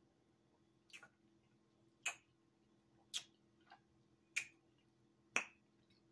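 Lip and tongue smacks while tasting a sip of soda: five sharp mouth clicks, about one a second.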